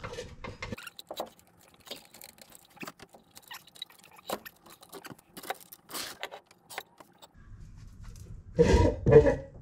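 Light metallic clinks and knocks from a 1952 VW Barndoor bus gearbox being handled on a floor jack as it comes free, then a louder low rumble near the end as it is pulled out from under the bus.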